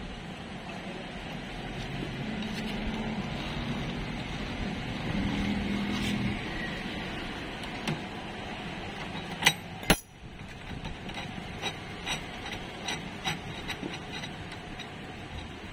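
TVS Jupiter 125 scooter engine running with the CVT cover off, the belt drive exposed. It builds for about six seconds, then eases back; two sharp metallic clicks come near the middle, followed by scattered light ticking. The scooter has a vibration problem that the mechanic traces to the clutch.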